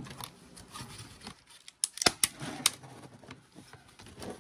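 Plastic clicks and snaps from a Toshiba laptop's case being handled and pried apart, with a few sharp snaps about two seconds in.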